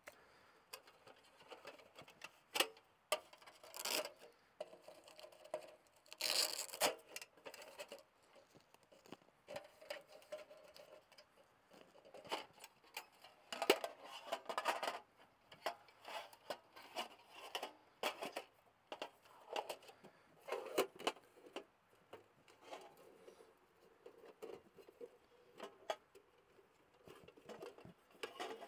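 Thin titanium panels of a flat-packed wood stove being unstrapped, unfolded and fitted together by hand: irregular light metal clinks, clicks and scrapes, with a few sharper knocks.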